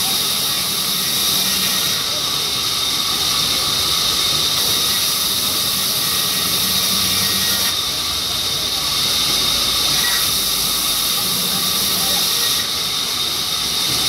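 Vertical band saw cutting a mahogany board: a loud, steady high hiss with a constant high whine, the hiss growing louder and softer several times.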